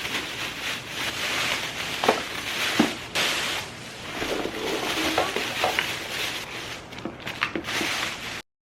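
Rustling with scattered light clicks and knocks of objects being handled, cutting off abruptly near the end.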